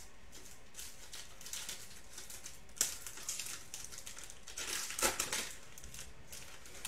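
Foil wrapper of a football trading-card pack crinkling as it is torn open and handled, in irregular crackles with a sharp one about three seconds in and a louder cluster around five seconds.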